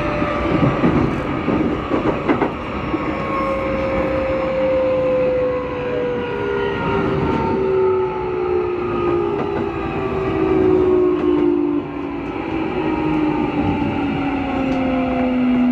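Keikyu 1000-series train's Mitsubishi IGBT VVVF inverter and traction motors whining inside the car, several tones falling steadily in pitch as the train slows, over wheel and rail rumble. The motor noise is abnormally loud, which the uploader believes comes from a noisy motor moved over from set 1105.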